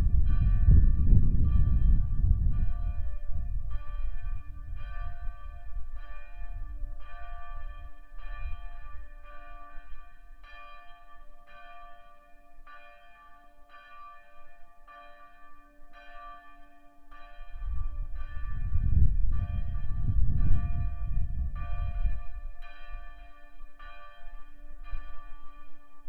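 Church bells tolling, about one stroke a second, each stroke ringing on over the next. A low rumble sits under them, strongest at first and again around eighteen to twenty-one seconds in.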